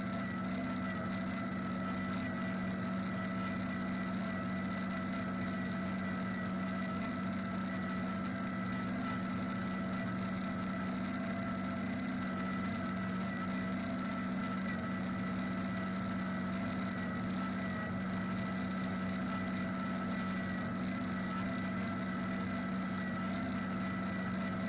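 John Deere 4620 tractor's diesel engine and the John Deere 3940 pull-type forage harvester it drives, running steadily under load while chopping hay: an even drone with steady higher whining tones over it.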